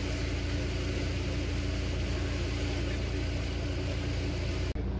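A passenger ferry's engine running steadily, a low drone with a hum, over the rushing hiss of water and wind past the boat. There is a brief break near the end.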